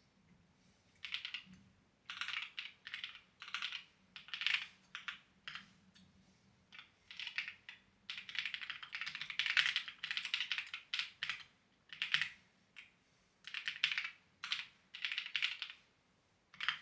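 Typing on a clacky mechanical-style computer keyboard, in quick runs of keystrokes broken by short pauses, with the longest fast run a little past the middle.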